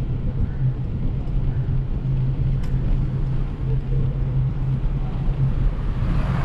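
A vehicle in motion: its engine hums steadily, over a continuous rumble of road noise.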